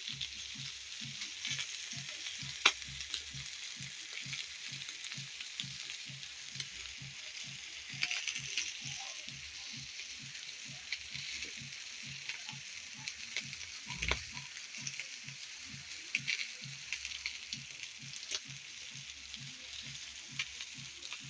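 Food sizzling on a comal (flat griddle): a steady hiss with scattered crackles and pops, one sharp pop a couple of seconds in and a thump about two-thirds of the way through. Underneath runs a faint low pulsing about three times a second.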